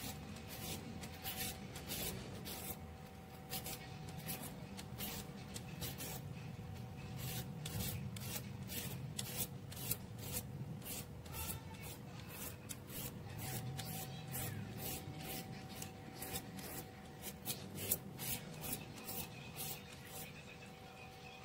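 A shredding peeler scraping down a cucumber in quick repeated strokes, about two a second, cutting off thin strips.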